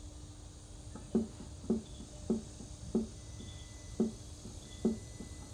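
A series of seven short, dull thumps at an uneven pace, about one every half second to a second.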